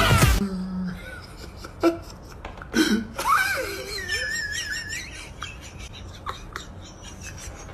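Pop music cuts off about half a second in, followed by a person's quiet giggling and small vocal sounds, with a high wavering squeal about four seconds in.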